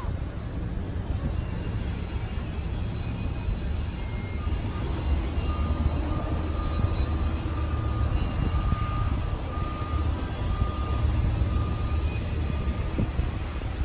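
Jet airliner noise across the airport: a steady low rumble with a faint high whine that comes and goes in the middle of the stretch.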